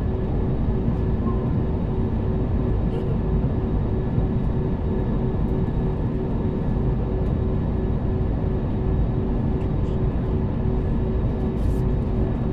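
Steady airliner engine and cabin noise, a low even rumble with a constant hum running through it.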